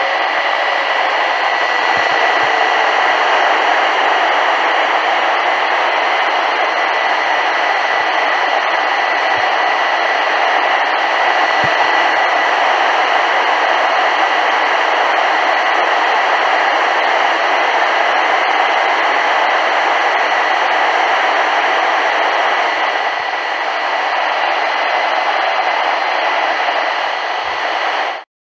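Loud, steady radio static hiss from a NOAA weather radio receiver that has lost its signal, the sign of the transmitter going off the air. A faint steady whine runs through the hiss, and it cuts off suddenly near the end.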